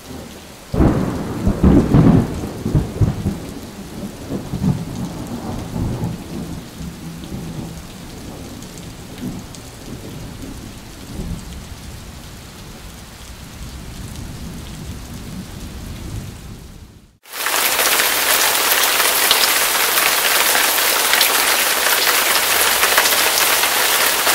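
A thunderclap about a second in, rumbling and slowly fading. About two-thirds of the way through it cuts off suddenly, and loud, steady heavy rain begins.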